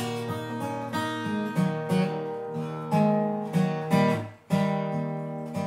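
Acoustic guitar playing a blues accompaniment between sung lines, with picked and strummed chords that ring and fade over a moving bass line.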